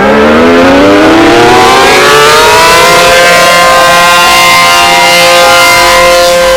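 Tornado warning siren winding up: its pitch rises steadily for about three seconds, then holds a loud, steady wail.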